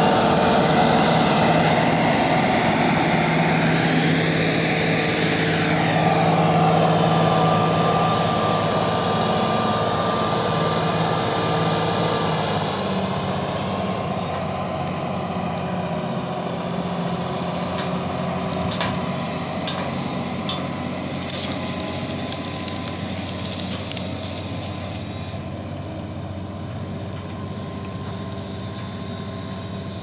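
Diesel farm tractor engine running steadily under load, growing gradually fainter as the tractor moves away. A few brief knocks come through about two-thirds of the way in.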